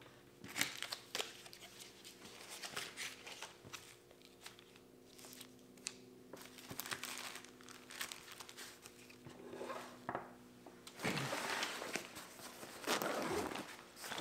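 Plastic-wrapped first-aid packets crinkling and rustling as they are handled on a table, with louder rustling of a nylon backpack being opened near the end.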